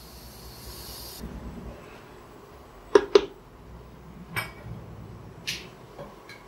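Water poured from a bowl into a pressure cooker holding soaked rice and dal, cutting off about a second in. A few sharp clinks of a bowl against metal follow, two of them close together in the middle.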